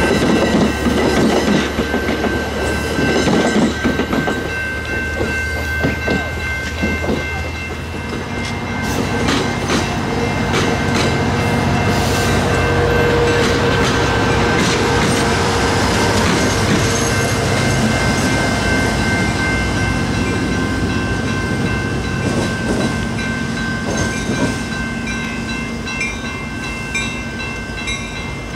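AMT commuter train of Bombardier bi-level coaches rolling past, its wheels clattering over the rail joints with a steady run of clicks. The level-crossing signal bells ring throughout. The clatter fades near the end as the last car clears the crossing.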